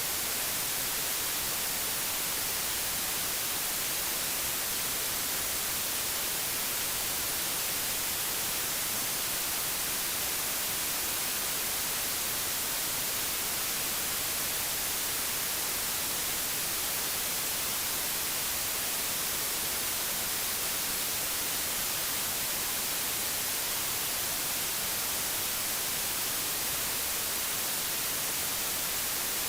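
Steady digital white noise: an even, unchanging hiss across the whole range.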